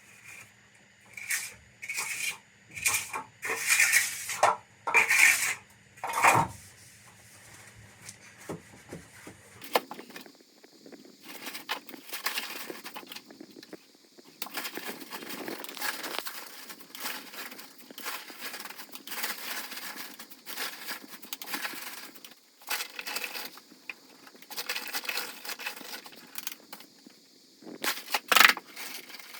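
Building work clearing out a fireplace opening: a run of sharp knocks and clatters, then a long stretch of scraping and crunching, with one loud knock near the end.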